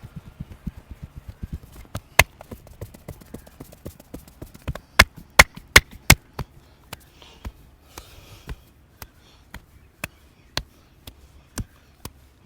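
A masseur's hands striking the body in percussive massage strokes: a quick run of soft thumps, about six a second, then irregular sharp slaps. The loudest slaps come as four in quick succession near the middle, and the slaps grow sparser toward the end.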